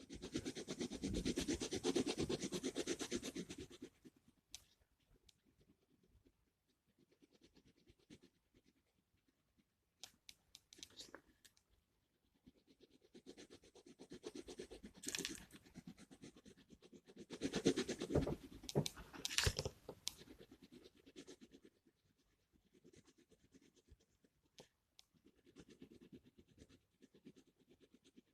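Gel pen colouring on paper: rapid back-and-forth scratching strokes in spells, a long one at the start and another in the middle, with fainter strokes between.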